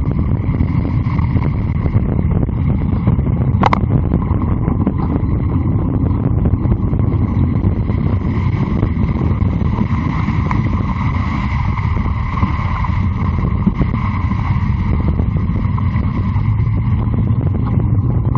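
Mountain bike tyres running through shallow floodwater on a road, under a steady heavy rumble of wind on the microphone. A brief sharp sound cuts through about four seconds in.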